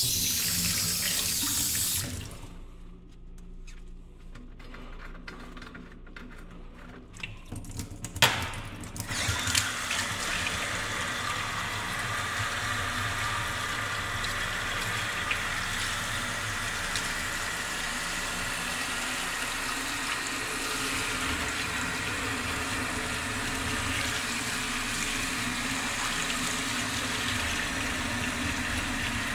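Kitchen tap running into a sink: a short run of water, a pause with a few clicks and knocks, then from about nine seconds in a steady stream that runs on.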